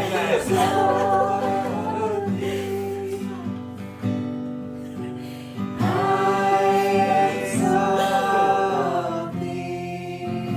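Worship music: acoustic guitar chords under long held sung notes, with no clear words.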